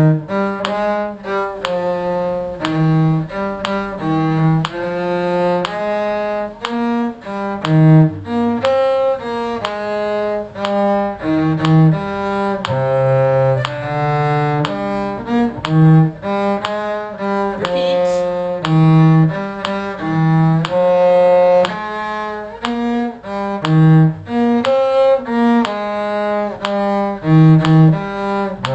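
Bowed string instruments playing a round in two or more parts, a low line under a higher melody, in steady note changes, with a metronome click marking each dotted quarter note.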